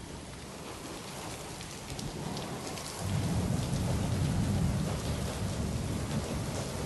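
Rain falling steadily, with a deep rumble of thunder swelling in about three seconds in and carrying on.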